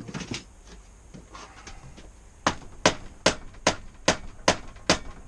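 A rubber mallet striking an Aprilia RS125 fork leg about eight times in an even rhythm, roughly two and a half blows a second, knocking the leg down out of the loosened yokes. A short clatter of handled tools comes first.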